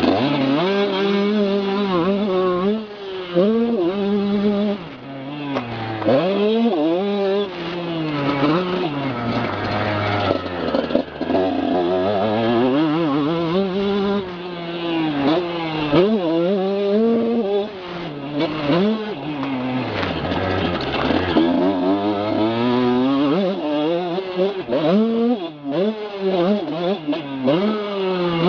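Motocross bike engine heard up close from a camera on the rider's neck brace, revving up and dropping back again and again through the ride.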